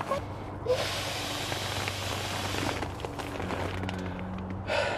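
A long breath blown hard into the valve of an inflatable sleeping pad, a rush of air lasting about two seconds, with the pad's nylon rustling. A short laugh near the end.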